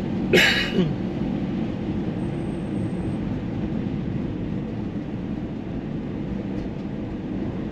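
Steady road and engine noise of a moving car heard from inside the cabin, with one brief sharp sound about half a second in.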